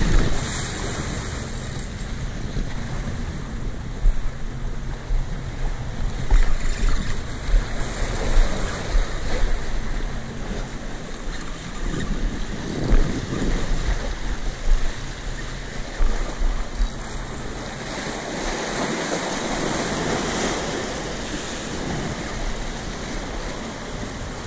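Sea waves washing and splashing against the boulders of a rock jetty, with gusting wind buffeting the microphone.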